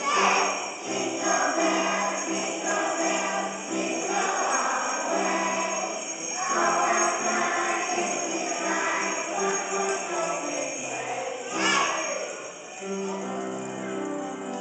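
Small hand jingle bells shaken by a group of young children to a Christmas song, with children's voices singing along.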